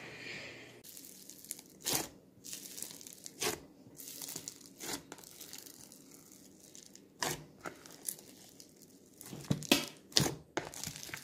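Hands stretching and squeezing a large batch of white foam-bead slime (floam), giving irregular sharp pops and crackles, several in quick succession near the end.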